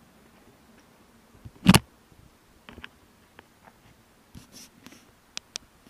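Handling noise on a body-worn or mounted action camera: one loud knock a little under two seconds in, then scattered light clicks and rustles, with two sharp clicks near the end, as the camera is gripped and turned.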